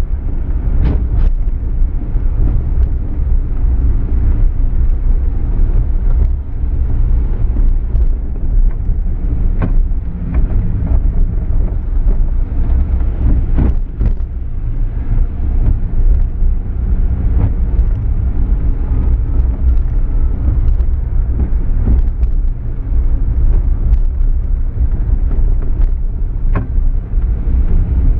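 Car driving slowly on a narrow, rough road, heard from inside the cabin: a steady low engine and road rumble with scattered short knocks and rattles.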